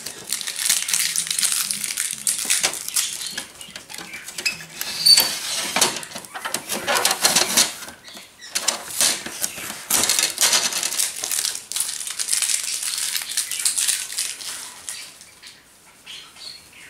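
Crinkling plastic packing and the plastic paper trays of a new Epson XP-4100 inkjet printer being handled during unpacking: rustling, scraping and irregular clicks, which die down near the end.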